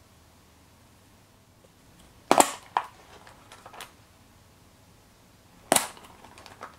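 Plastic gashapon capsules snapping open, two sharp pops a little over three seconds apart, each followed by a few lighter plastic clicks.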